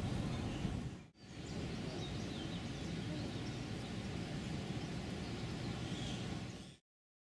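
Outdoor ambience: a steady low rumble of background noise with a few faint bird chirps, briefly dropping out about a second in and cutting to silence near the end.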